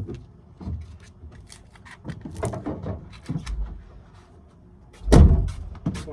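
Scattered knocks, clicks and low thuds of things being handled and bumped in a small room, with one heavier thump about five seconds in.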